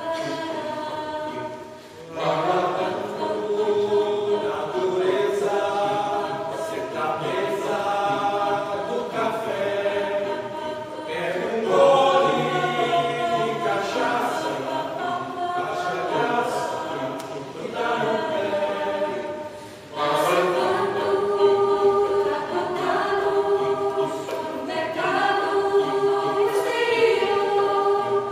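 Mixed choir of women's and men's voices singing in parts, with short pauses between phrases about two seconds in and again about two-thirds of the way through.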